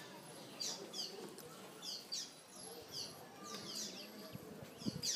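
Small birds chirping: short high calls that fall in pitch, repeated a few times every second.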